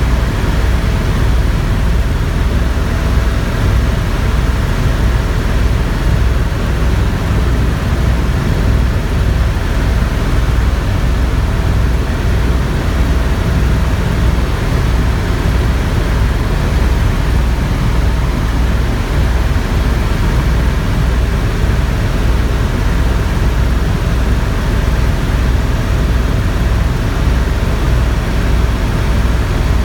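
Helicopter running steadily in flight: a constant low, rapid throb of the rotor under an even rush of engine and air noise.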